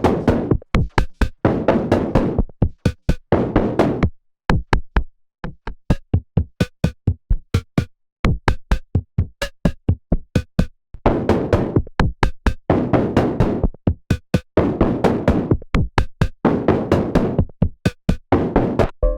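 Elastic Drums synthesized drum pattern playing: a fast, even run of sharp clicky hits mixed with longer noisy hits, briefly pausing twice.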